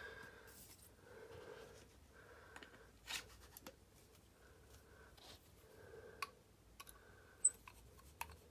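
Faint handling noise of a lightsaber hilt and its blade tube being picked up and fitted together, with scattered sharp clicks of plastic and metal parts; one louder click near the end.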